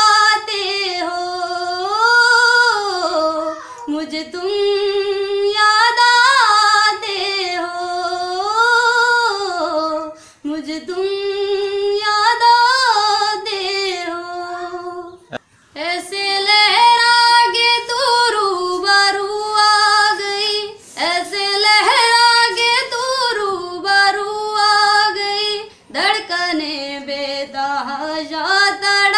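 A woman singing solo, with no instruments, in long held, wavering notes that slide between pitches, phrase after phrase with short breaths between.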